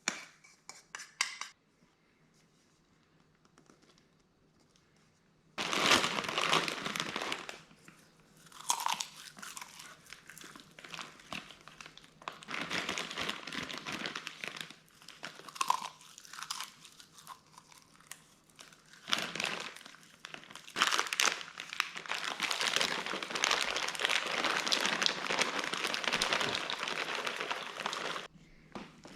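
Walnuts being crushed: repeated crunching and crackling in bursts, heaviest in a long stretch near the end.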